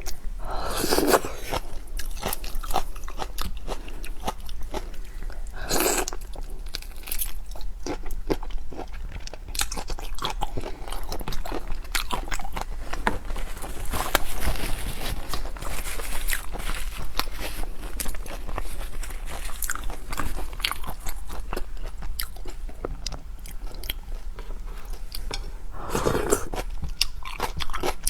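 Close-miked chewing and biting of seafood: continuous crunching and crackling mouth sounds, with a few louder wet, slurping mouthfuls about a second in, around six seconds and near the end.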